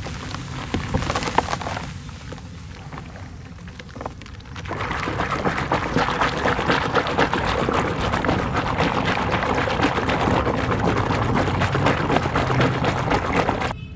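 Hands crumbling dry, powdery dirt into a tub of water, with a crackling patter as it falls. About five seconds in it gets louder, as the hands squeeze and mash the soaked dirt in thick soap foam: a dense wet squelching and sloshing. It cuts off abruptly near the end.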